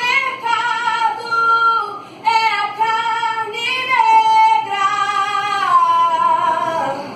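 A child's high singing voice singing a melody in long held notes, with a short break for breath about two seconds in and a downward slide near the end.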